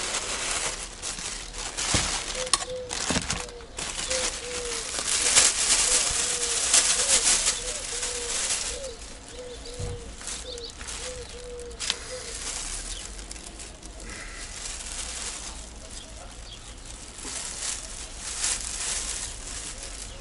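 Rustling, scuffling and knocks as a live nutria, held by its tail, struggles and is handled into a plastic bag. Through the first half there is a run of short, repeated low calls, about one and a half a second.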